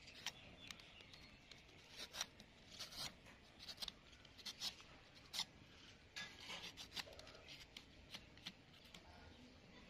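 Y-shaped vegetable peeler scraping the green skin off watermelon rind: faint, short strokes at an uneven pace, about one or two a second.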